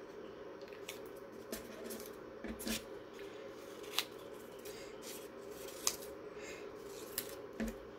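Small handling sounds of paper and craft materials: scattered sharp clicks and brief rustles over a steady low hum.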